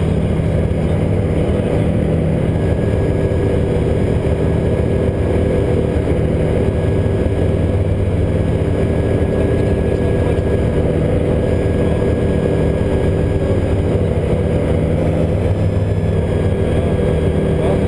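Magni M24 Orion gyroplane in cruise flight, heard from inside its enclosed cockpit: the engine and propeller make a loud, steady drone.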